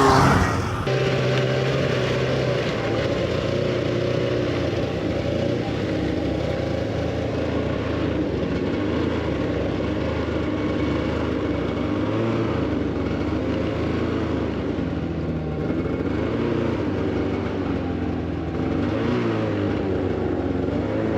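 Snowmobile engine running steadily under way, its pitch rising and falling a little with the throttle.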